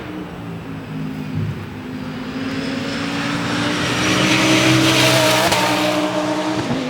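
Audi R8 LMS Ultra race car's V10 engine accelerating as it approaches and passes. Its pitch dips briefly about a second and a half in, then climbs steadily, and it gets louder to a peak about five seconds in before easing off.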